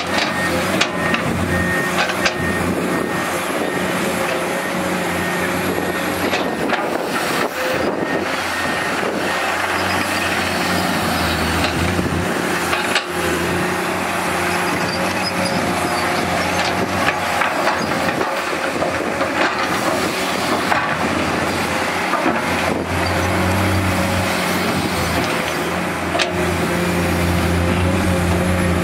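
Diesel engine of a Komatsu PC210 hydraulic excavator running steadily under load as it digs sand, with scattered clanks and knocks from the bucket and arm. The engine grows louder about three quarters of the way through.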